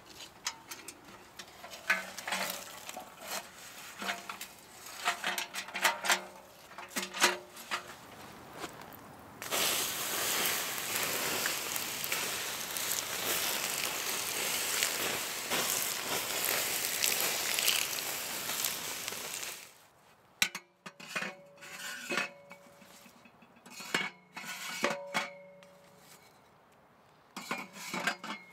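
Steel camp wood-burning stove being handled: clanks, knocks and metallic rings as its door and parts are worked and the ash is tipped out. About ten seconds in, a steady hiss takes over for about ten seconds as hot ash steams. After that come more clanks as stove parts are slid into the stove body.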